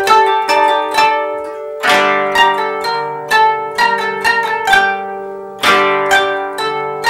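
Three 13-string kotos played together, plucking single notes and chords that ring and die away. Strong chord strokes come about two seconds in and again near six seconds.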